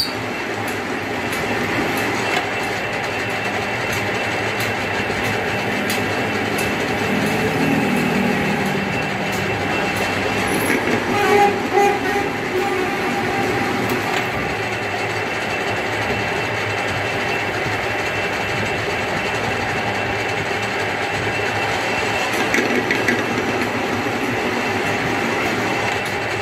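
Belt-driven metal lathe running steadily while a screw thread is cut along a metal rod, with a short louder stretch about eleven seconds in.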